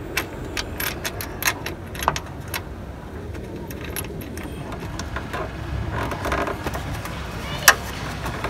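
Small metal hardware clinking and clicking as a ball stud, washer and nut are handled and fitted onto a hood hinge bracket. A single sharper snap comes near the end as the gas strut's end socket is pushed onto the ball stud.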